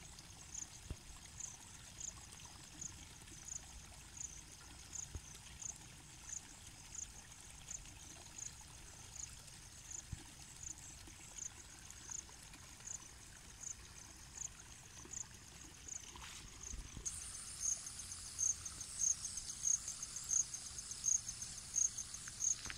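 Insects chirping, short high chirps about twice a second. About three quarters of the way in, a second, louder insect joins with faster chirping.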